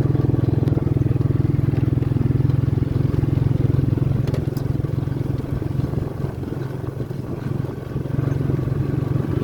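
Small motorcycle engine running steadily underway, easing off briefly about six seconds in before picking up again.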